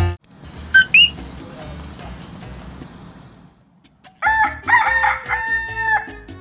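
A rooster crowing, starting about four seconds in: several short notes then a long held note that drops at the end. Before it, a steady hiss with a high thin whine and a short, loud two-note chirp rising in pitch about a second in.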